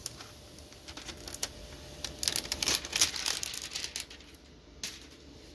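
Thin plastic protective film from a 3D printer's build plate crinkling as it is handled and crumpled, in irregular bunches of crackles, the densest about two to three and a half seconds in.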